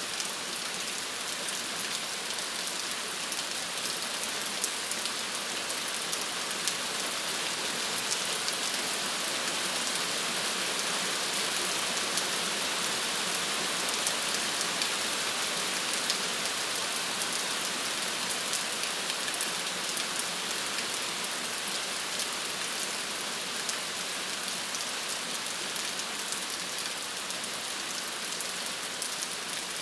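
Steady rain falling on a surface, an even hiss with many small droplet ticks.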